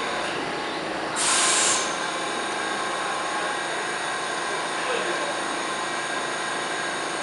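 Vintage IRT SMEE subway cars standing at a station platform, their equipment humming steadily, with a short burst of air hiss about a second in. Voices murmur faintly in the background.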